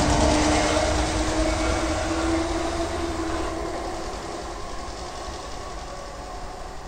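A train running past and moving away, its noise fading steadily. A steady hum from the train dies away about halfway through, leaving a low rumble.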